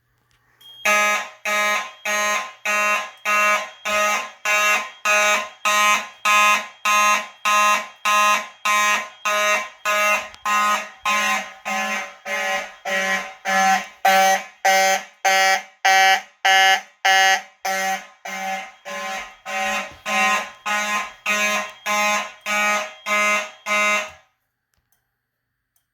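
Mechanical fire alarm horn sounding in steady pulses, just under two a second, each pulse a loud many-toned blare. It starts about a second in and cuts off suddenly near the end as the alarm is silenced.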